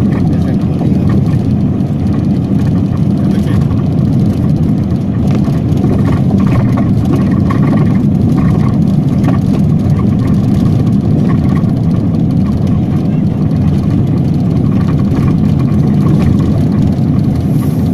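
Steady low rumble of a vehicle's engine and tyres heard from inside the cabin while driving on a dirt road.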